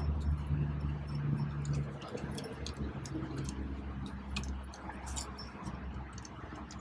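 Flaring tool's feed screw being spun back out by hand after the flare is finished, giving light, irregular metallic clicks over a steady low hum.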